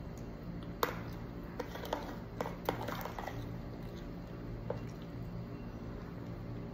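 Spoon clicking and scraping against a plastic tub while scooping thick açaí, scattered light clicks, most of them in the first three seconds. A faint low steady hum runs underneath.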